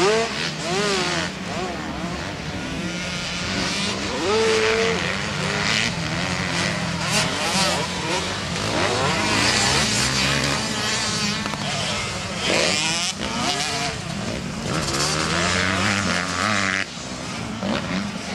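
Motocross bikes racing on a dirt track, their engines revving up and falling back again and again as riders accelerate, shift and pass.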